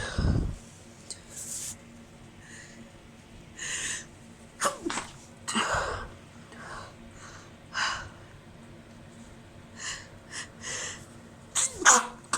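A woman's stifled sneezes, one after another, with quick breaths in between and the loudest pair near the end. They are set off by chhikni sneezing powder on an allergy-irritated nose.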